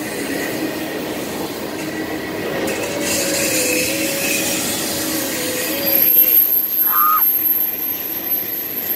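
Union Pacific double-stack container train's well cars rolling past, steel wheels on rail making a steady rumble. A wavering wheel squeal rises over it in the middle, and a thin high-pitched whine starts about six seconds in.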